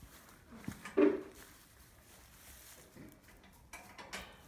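A goat's short, low bleat about a second in, with a few faint knocks and rustles around it.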